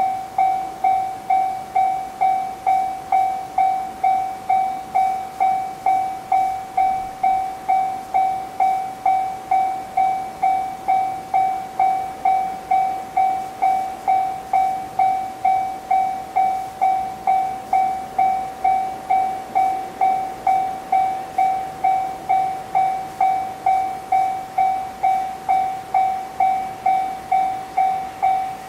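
Japanese railway level crossing warning alarm ringing: a single bell-like tone repeating evenly about one and a half times a second, each note struck sharply and fading.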